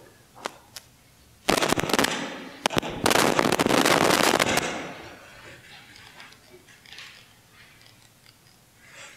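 Crackling rustle and handling noise right at the lectern microphone: two small clicks, then loud crackling from about one and a half seconds in, heaviest between about three and four and a half seconds, dying away by about five seconds, with faint small knocks after it.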